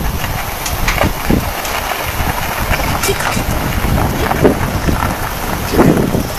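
Rough rushing noise of wind and a fast-flowing river, with scattered short knocks and clanks as a steel cable-car cage carrying a motorcycle is pushed off along its cable. There are a few brief voice sounds near the end.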